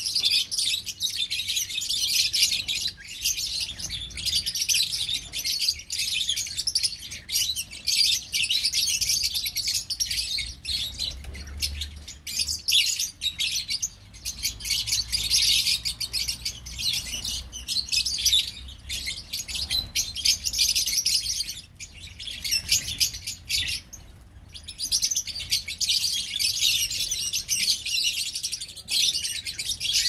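A flock of lovebirds chattering, many high chirps and twitters overlapping in a continuous din that eases off briefly a few times.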